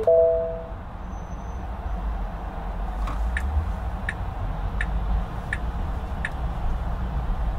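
Steady low road and engine rumble of a car driving through city traffic. A short, loud two-note tone sounds right at the start and dies away. Midway, a turn-signal indicator ticks about six times, roughly every 0.7 seconds, then stops.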